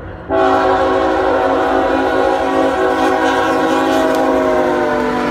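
Norfolk Southern diesel locomotive's air horn, several tones sounding together. It cuts out briefly at the start, then sounds again about a third of a second in as one long steady blast over the low rumble of the approaching train.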